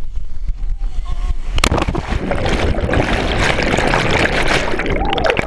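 A person plunging into a waterfall's plunge pool: a loud splash about a second and a half in, then a few seconds of churning, gurgling water.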